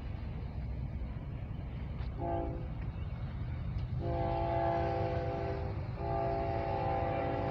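Air horn of an approaching diesel freight locomotive sounding a multi-note chord: a short blast about two seconds in, then two long blasts, over the low rumble of the oncoming train.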